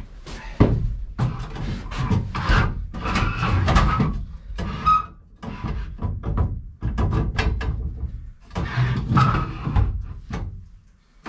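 Irregular knocks and clatter of a portable camp stove and canister being handled and set down on a wooden shelf inside a small plywood shack.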